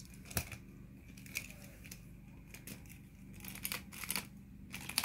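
Light plastic clicks and rattles from a large Sasuke Uchiha action figure being worked by hand, its punching arm mechanism pressed from the back. The clicks are scattered at first and come in a quick run near the end.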